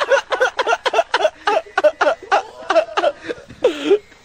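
A man laughing hard in rapid 'ha-ha' bursts, about four to five a second, ending in a longer falling cry near the end.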